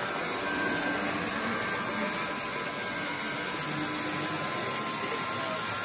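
Model trolley running along its track: a steady motor whir with wheel noise.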